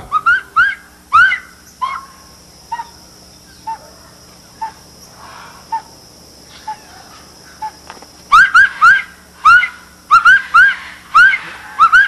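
A man whistling through cupped hands in imitation of a saracura (wood-rail) call: short rising, hooked whistles repeated in quick runs, sparse and quieter in the middle, then fast again from about eight seconds in.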